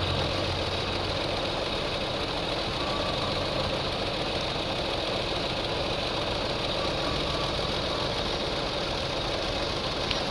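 A 2000 Lexus RX300's 3.0-litre V6 engine idling with its upstream oxygen sensor unplugged, a state the owner says makes it shake and idle poorly. There is a small click near the end.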